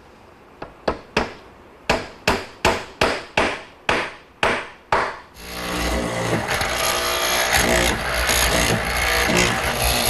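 About a dozen sharp taps, coming closer together, as square oak pegs are knocked into their holes. About five seconds in, a hollow-chisel mortiser starts running steadily, cutting a square mortise in oak.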